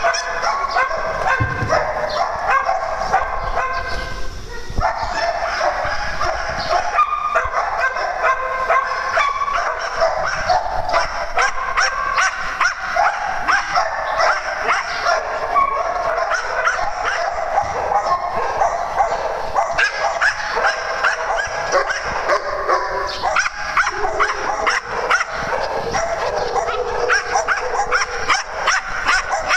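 Many dogs barking and yipping at once, overlapping in a steady, unbroken din.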